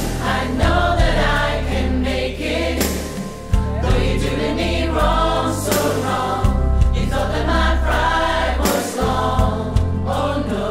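Song with a choir singing over an instrumental backing with a bass line and a steady drum beat.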